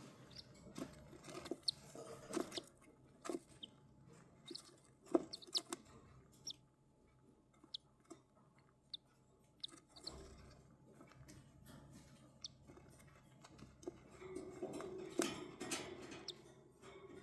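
A cockatiel nibbling and pecking: irregular small clicks and crunches, with a few very brief high chirps scattered through, busiest near the start and again near the end.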